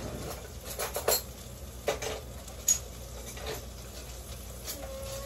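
Metal cutlery clinking and rattling as a knife is picked out from among other utensils: a handful of short, sharp clinks spread over a few seconds, the loudest about a second in and just before three seconds in.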